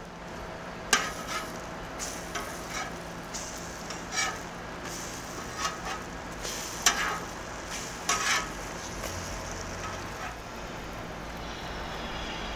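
French toast sizzling on a hot flat-top griddle while a metal spatula flips the slices, with repeated short scrapes and clicks of the spatula against the cooktop.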